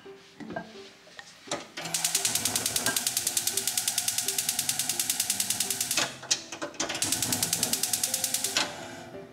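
Rinnai gas hob's spark igniter clicking rapidly and evenly while the burner knob is held turned, in two long runs with a short break between: the burner is slow to light.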